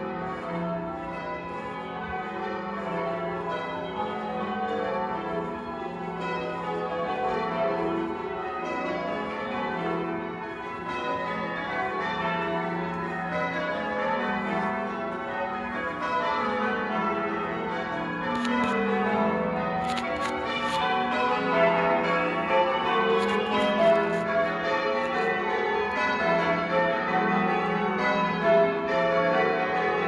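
A ring of church tower bells rung in changes (English change ringing): a continuous run of overlapping bell strokes, growing a little louder in the second half.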